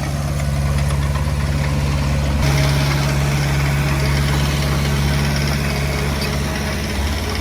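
Heavy-equipment diesel engine running steadily at low revs, getting a little louder and harsher about two and a half seconds in.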